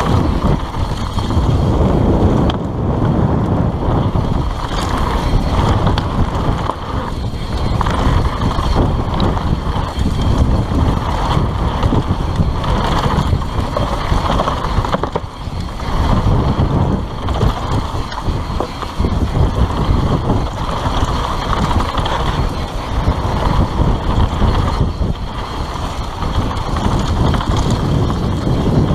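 Continuous wind buffeting on the microphone of a mountain bike's first-person camera while riding fast down a dirt singletrack, mixed with the bike's tyres and frame rattling over the trail.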